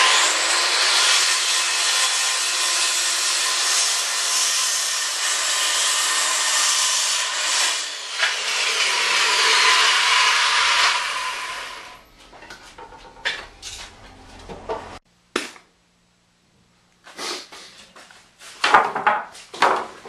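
Circular saw cutting through two stacked 2x4 boards in one pass, a loud steady whine and rasp for about twelve seconds that then dies away. Scattered knocks and clatter follow.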